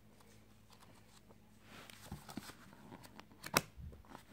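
Pages of an old sheet-music book being leafed through by hand: faint paper rustling with small clicks from about halfway, and one sharp tap near the end.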